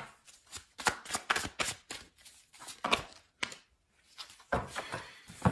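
Tarot cards being shuffled and handled: a run of quick, irregular snaps and riffles of card stock, with a short pause about three and a half seconds in before the handling picks up again.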